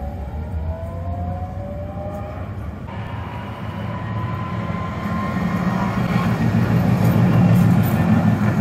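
Tatra KT4D articulated tram running: first a rising whine as it gets under way, then, after an abrupt change, another KT4D passing close by, its low rumble and wheel noise growing loudest near the end.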